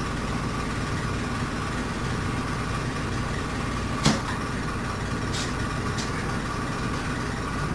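Air compressor running steadily while it inflates a tire, with one sharp click about four seconds in.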